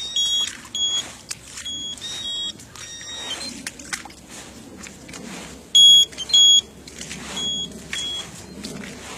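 Electronic beeper collars on hunting setters beeping: short, high-pitched beeps, mostly in pairs about half a second apart, the loudest pair about six seconds in. Grass rustles underfoot throughout.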